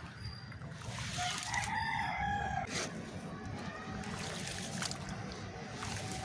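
A rooster crows once, starting about a second in and lasting about a second and a half, over a steady low wash of water sloshing as dirt crumbles into it.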